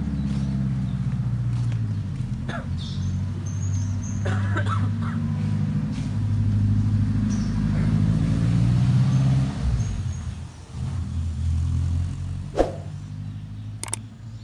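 An engine running steadily close by, a low rumble that eases off after about ten seconds, with a sharp knock near the end.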